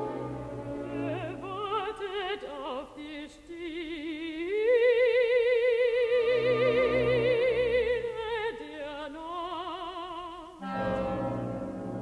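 Mezzo-soprano singing with wide vibrato over sustained orchestral chords. Her line climbs about four seconds in to a long held high note, then falls away. She stops shortly before the end, where the orchestra holds a chord alone.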